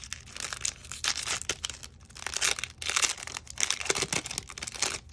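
A Topps baseball card pack's wrapper being torn open and crinkled by hand: a run of irregular crackling tears and rustles.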